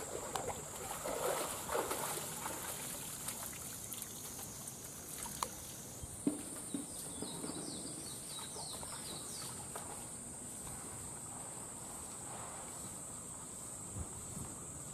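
Water splashing and trickling as a tiger hauls itself out of a pool, strongest in the first few seconds, followed by a few sharp knocks and quieter movement, over a steady high-pitched hiss.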